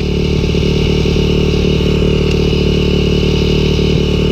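Dirt bike engines idling steadily, the nearest one right under the microphone, with no revving.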